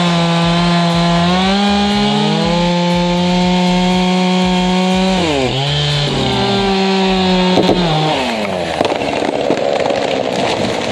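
Two-stroke chainsaw running at high revs, its pitch sagging and recovering as it loads up in the cut. After about eight seconds the steady pitch gives way to a rougher, noisier sound with a few sharp clicks.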